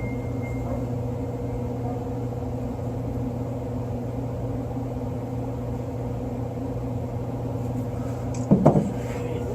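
Steady electrical hum from a powered HVAC unit. A brief handling noise comes near the end.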